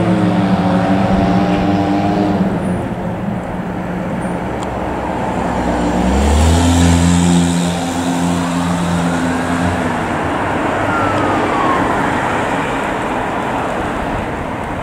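Fire engine driving off, its engine a steady pitched drone that fades, then comes back stronger about six seconds in and holds for about four seconds. A faint siren wail rises and falls behind it over street traffic noise.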